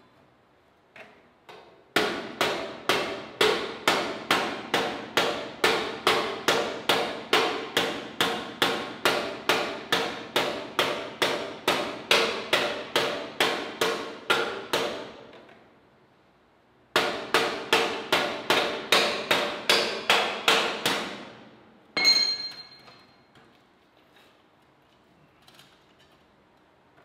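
A hand hammer striking steel on a scrap-metal sculpture in quick, even blows, about three a second, each ringing briefly. One long run of blows is followed after a short pause by a shorter run, then a single last blow that rings higher.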